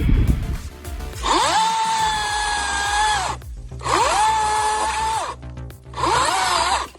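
A power tool motor spins up quickly and holds at a steady high pitch, three times, each burst lasting between about one and two seconds with short pauses between. A low rumble comes in the first moment, and background music plays underneath.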